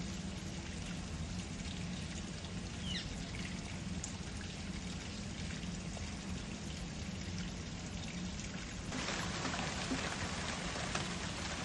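Steady trickling, pouring water-like noise over a low hum, with a couple of faint, short high bird chirps about three seconds in; the water noise grows louder about nine seconds in.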